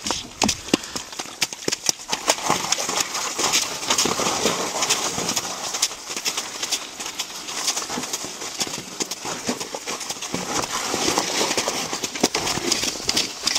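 Curly pony mare's hooves clip-clopping on a snowy trail as she pulls a cart, with the cart and harness rattling: a run of irregular sharp clicks and knocks over a steady rumble.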